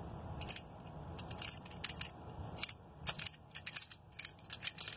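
Scattered small clicks and light rattles from a Hallmark Keepsake Lionel 2348 GP9 diesel locomotive ornament being turned over in the fingers, its loose trucks shifting, coming in irregular clusters.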